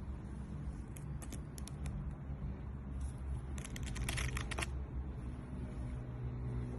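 A few light clicks, then a short cluster of rattling clicks about four seconds in, over a steady low hum.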